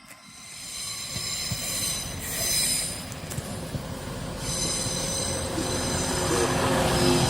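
A train moving through the station with its wheels squealing on the rails, the high squeal fading in and out as the train grows louder. Near the end a deeper engine or traction hum builds under it.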